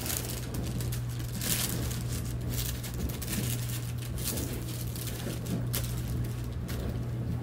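Parchment paper crinkling and rustling in irregular short bursts as bread dough is handled and reshaped on it, over the steady low hum of a running dishwasher.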